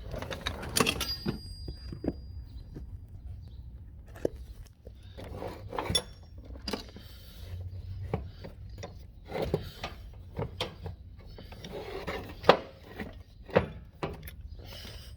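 Irregular knocks, bumps and rubbing of objects being handled and shifted around, with a brief high squeak about a second in.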